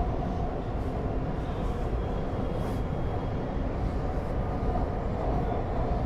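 Nanjing Metro S1 line train running at speed, heard from inside the carriage: a steady rumble with a steady whine above it.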